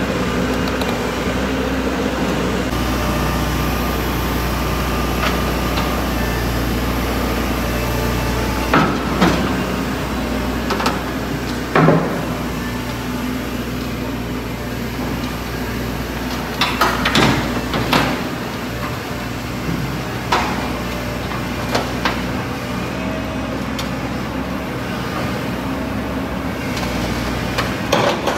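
A heavy engine running steadily, with sharp metal clanks and knocks every few seconds, the loudest about twelve seconds in and a cluster of them around seventeen seconds in.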